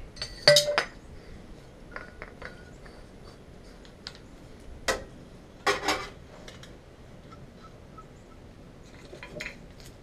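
Scattered metallic clinks and clanks of fittings, tools and a metal flush canister being handled. The loudest comes about half a second in with a short ring, then single knocks near five seconds and a quick cluster around six seconds.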